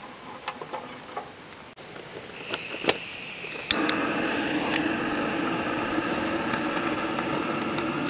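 Lighting of the small wood-burning camp stove: scattered clicks, then about three and a half seconds in a steady rushing sound starts suddenly and keeps going as the fire is started.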